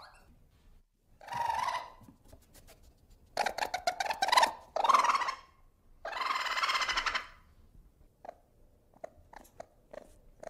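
Ferret vocalising in short bursts: rapid clucking runs (dooking) and a few longer, harsher calls. The loudest come about four to five seconds in, and faint short clicks follow near the end.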